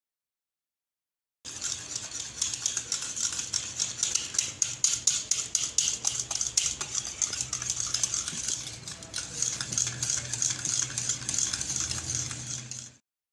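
A utensil stirring and beating in a bowl, a fast irregular run of clicks and scrapes that starts a second and a half in and cuts off abruptly near the end.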